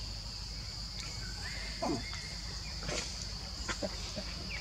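Steady high-pitched insect drone of the forest, with a few short animal calls and clicks over it; the loudest is one brief call falling in pitch about two seconds in.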